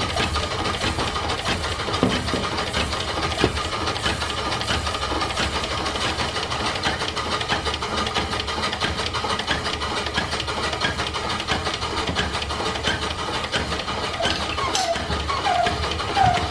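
Duplex steam pump running, steam hissing and its valve gear knocking steadily as it pumps water round in a loop. Near the end come a few short chirps, which the owner thinks may be a dry packing gland.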